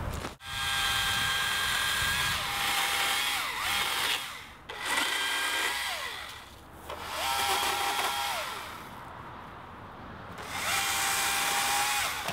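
Husqvarna T535i battery chainsaw with a 12-inch bar and Oregon Advance Cut chain, run in about four bursts as the trigger is squeezed and let off. Its electric motor and chain make a steady whine that drops in pitch as it coasts down after each burst.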